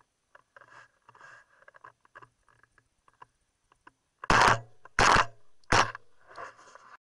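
Three shots from a semi-automatic shotgun in quick succession, about three-quarters of a second apart, very loud and close from a camera mounted on the barrel.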